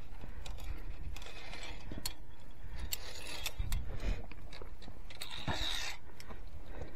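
Via ferrata carabiners clicking and scraping against the steel safety cable as a climber moves along it hand over hand, with scattered sharp metallic clicks and a couple of brief rubbing scrapes over a steady low rumble.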